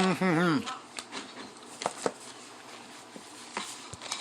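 A short wavering voice sound at the start, then a few sharp clicks and taps from eating at the table: utensils and shells.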